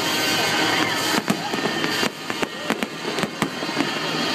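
Fireworks display: a dense crackling hiss for about the first two seconds, then a quick run of sharp bangs and pops.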